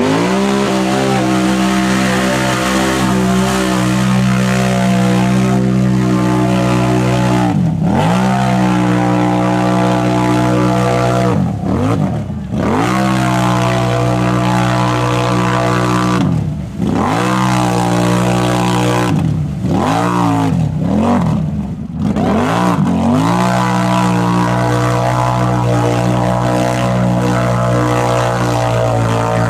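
ATV engine held at high revs while churning through a deep mud hole, giving a steady, loud drone. The revs drop briefly and climb straight back several times as the throttle is lifted and reapplied.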